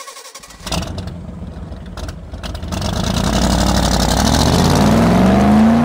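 Intro sound effect of a car engine revving up, its pitch climbing steadily and growing louder over the last three seconds, after a sudden hit about a second in.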